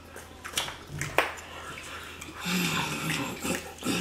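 Eating sounds from sauce-covered chicken wings being chewed and sucked off the bone: wet mouth smacks, two sharp ones about half a second and a second in, then a low hummed vocal sound for about a second past the middle.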